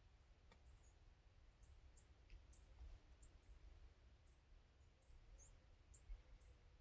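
Near silence in woodland: faint high-pitched chirps repeat irregularly, about two a second, over a low steady rumble.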